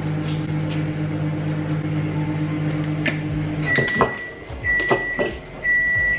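Microwave oven running with a steady hum while heating a cup of milk. A little over three and a half seconds in it stops and gives its end-of-cycle beep, a high single tone repeated about once a second, three times, with a few light knocks among the beeps.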